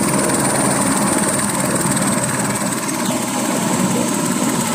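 Light helicopter running on the ground with its main rotor turning: a steady turbine whine over the dense, even noise of engine and rotor.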